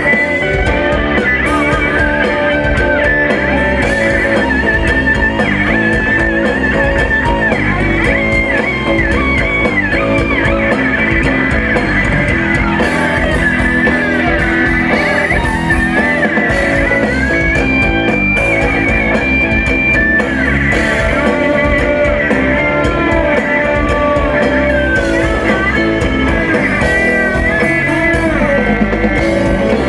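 Rock band playing live, an instrumental passage with a lead guitar line bending and wavering over the rhythm section.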